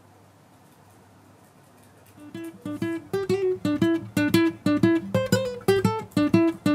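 After about two seconds of faint room tone, plucked acoustic-guitar-like music starts: a quick, bouncy run of single notes that carries on.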